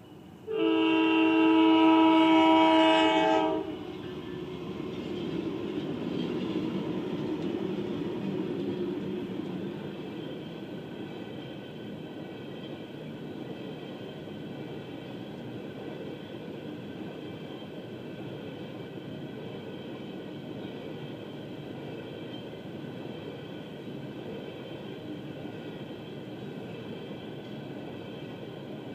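Norfolk Southern freight locomotive's air horn sounding one long, loud blast of about three seconds, starting about half a second in. The locomotive then passes, louder for several seconds, and the empty coal hopper cars follow, rolling by steadily over the crossing.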